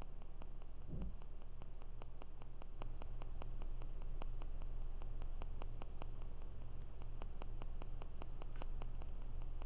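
Steady low rumble of a car driving on the road, heard from inside the cabin, with an even, fast ticking of about five or six sharp clicks a second running through it.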